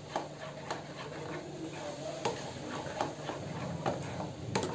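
A bare hand mixing thick gram-flour (besan) batter in a bowl, making irregular wet slaps and squelches a few times a second, with one stronger slap near the end.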